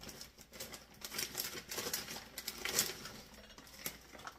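Frozen blackberries poured from a bag into a slow cooker pot, making an irregular clatter of many small clicks and taps as the hard frozen berries drop in.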